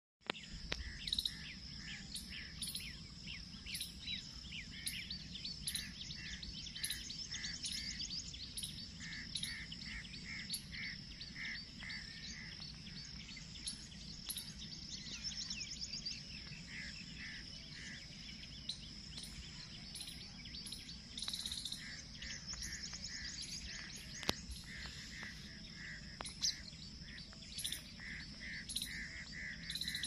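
Birds chirping in quick repeated runs, over a steady high-pitched insect drone and a low background rumble.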